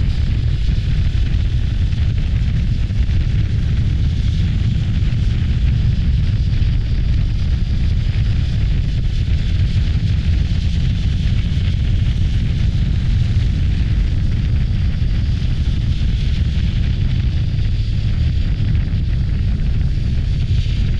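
Heavy, steady wind rumble buffeting the microphone on a moving Voge DS525X motorcycle, with the ride's road and engine noise blended underneath.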